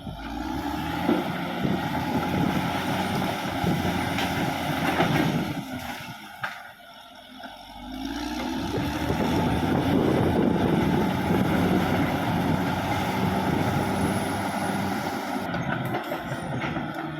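Caterpillar D6R XL bulldozer's diesel engine running hard under load. About six seconds in it drops away for a couple of seconds, then revs back up and runs on, with occasional knocks and clanks over it.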